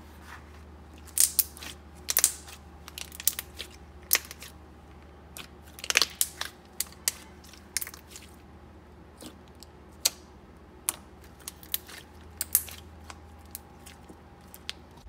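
Thick, glossy slime being stretched, folded and squeezed by hand, giving irregular sharp pops and crackles as trapped air bubbles burst. A faint low hum runs underneath.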